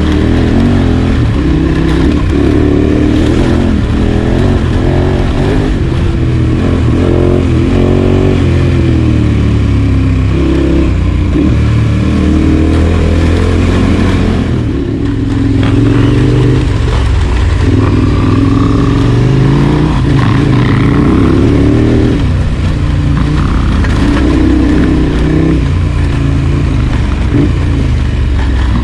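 Large adventure motorcycle engine running continuously, its revs rising and falling repeatedly as the throttle is worked, with a brief ease-off about halfway through.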